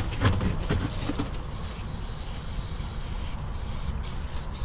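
Aerosol spray paint can spraying in short hissing bursts, starting about three seconds in, after a few light clicks early on.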